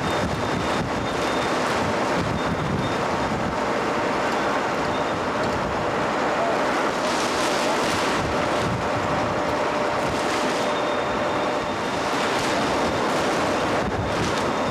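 Strong storm wind gusting and buffeting the microphone, a steady rough rush of noise, with a faint steady hum beneath it in the second half.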